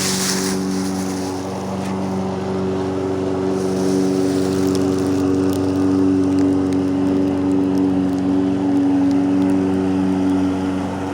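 A motor or engine running steadily, a low hum that holds one pitch.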